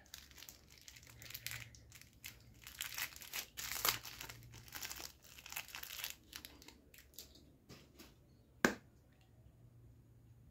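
Small clear plastic toy pouch crinkling and tearing as it is opened by hand, in irregular rustles for about seven seconds. One sharp click comes near the end.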